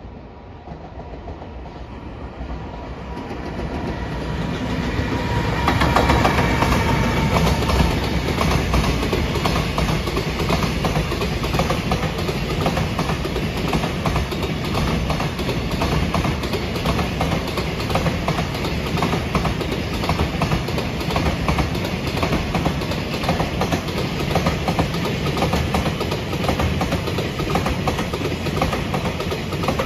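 Container freight train passing: it approaches, growing louder over the first six seconds, then a long string of container flatcars goes by with a steady, rapid clickety-clack of wheels over the rail joints.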